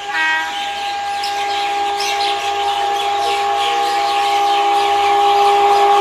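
Locomotive horn of an approaching superfast express train, sounded as one long steady blast. Birds chirp over it.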